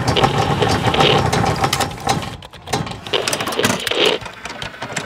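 Sound effects for an animated logo intro: a run of quick mechanical clicks and ticks, with whooshing swells about a second in and again about four seconds in.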